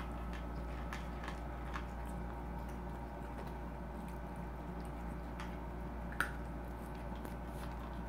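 Cats chewing corn kernels off the floor: soft wet chewing and small scattered clicks, with one sharp click about six seconds in, over a steady low hum.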